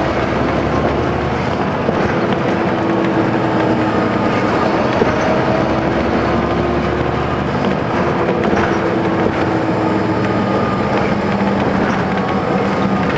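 Caterpillar C13 diesel engine of a 2009 NABI 416.15 transit bus idling, a steady drone with a faint whine running through it.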